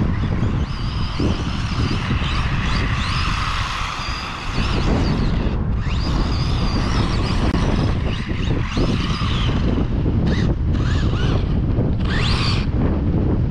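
Wind buffeting the microphone, over the high whine of an ECX 1/18 Ruckus electric RC monster truck's motor rising and falling with the throttle as it drives on sand.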